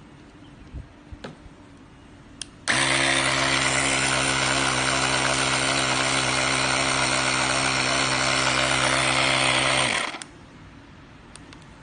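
Cordless 12 V portable tyre inflator's motor-driven piston compressor running with its hose chuck unconnected. It starts abruptly about two and a half seconds in, runs steadily with a strong hum for about seven seconds, and cuts off near the end, its pitch dropping slightly as it stops. A few light clicks come before it starts.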